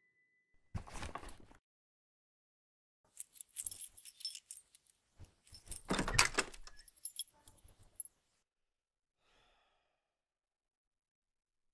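Keys jangling and clinking for several seconds, with a louder clack about six seconds in as a door is unlatched and opened. A brief noise comes about a second in.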